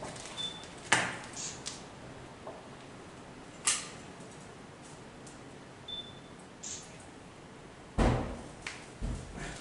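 Sparse sharp clicks and knocks in a small, quiet room, with a heavier thump about eight seconds in. Two faint, short, high beeps are heard, one near the start and one about six seconds in.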